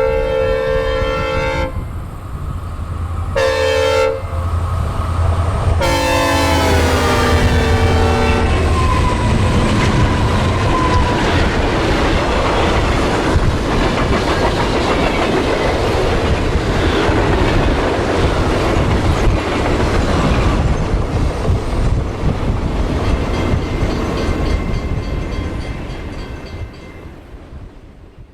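Synthesized recreation of a hybrid K5HL multi-chime locomotive air horn with a doppler pass. A long chord ends about two seconds in, a short blast follows, then a longer blast whose pitch falls as the train goes by. After that comes the rumble and clatter of the passing train, which fades away near the end.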